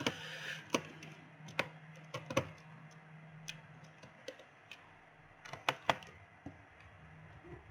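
Small metal laptop screws and a screwdriver clicking and tapping against the plastic base of a laptop, in irregular single clicks with a short scrape at the start, as the loosened bottom-panel screws are worked out. A faint steady hum sits underneath.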